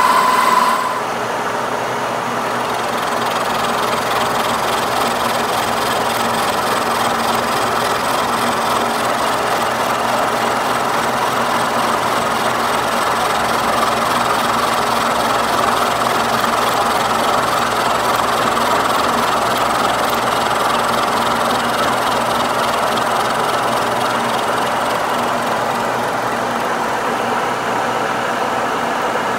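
Kearney & Trecker milling machine running, a helical end mill side-cutting the end of a raw cast iron casting: a steady hum of the machine with the gritty cutting noise on top. A high steady tone stops about a second in.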